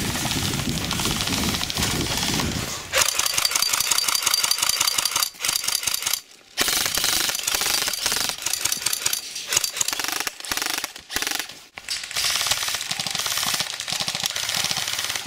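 Airsoft guns firing on full auto: a rapid rattle in long bursts that starts about three seconds in and breaks off briefly twice, after a low rumble at the start.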